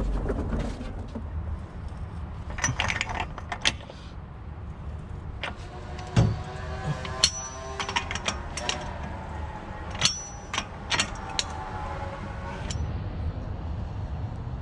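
Hand tools working on the CV axle nut of a BMW X5 E70 front hub: scattered sharp metallic clicks and clinks, in a cluster about three seconds in and more often from about six seconds to near the end, over a low hum.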